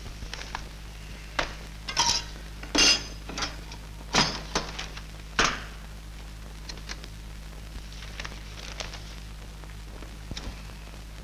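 Stainless-steel tiffin carrier being handled on a table: its metal containers clink and clank several times in the first half, then a few faint taps, over a steady low hum.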